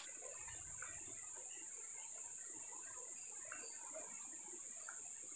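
A steady, high-pitched chorus of insects that runs unbroken.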